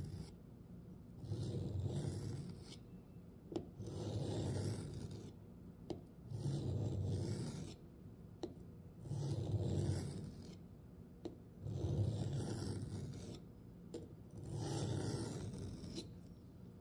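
Steel knife blade of a Randall Made knife being drawn across a diamond sharpening plate in slow, even rasping strokes, about one every two and a half seconds, with a light click between some strokes: putting an edge on the hard blade before stropping.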